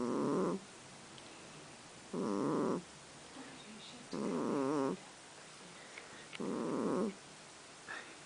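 Kitten snoring: four snores about two seconds apart, each lasting under a second, with a wavering pitch.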